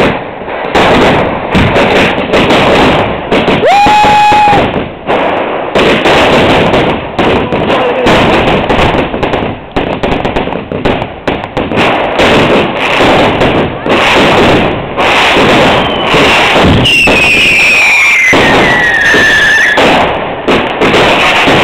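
Fireworks display going off in a dense barrage of bangs and crackling. A short steady whistle sounds about four seconds in, and a long whistle falls in pitch near the end.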